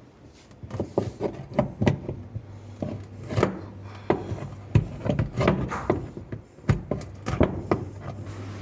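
Irregular knocks and taps from hand tools working on an LG semi-automatic washing machine during a seal change, with some scraping between the strikes.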